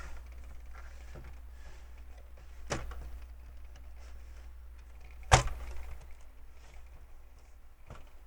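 Hard plastic LEGO parts clicking and knocking as two large built sections are pushed together, with a sharp click about three seconds in and a louder one about five seconds in, over a low steady hum.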